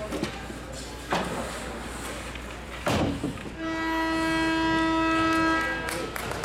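A horn sounds one steady, loud blast lasting a little over two seconds, after two sharp thumps.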